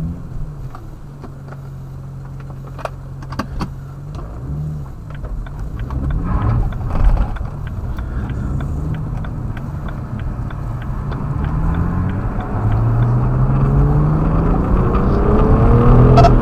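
BMW E92 335i's N54 twin-turbo inline-six, steady for the first few seconds, then revving up in a short rising pull and a longer, louder rise toward the end. A bad spark plug is misfiring cylinder 4, which puts the car in limp mode and makes acceleration shaky and struggling.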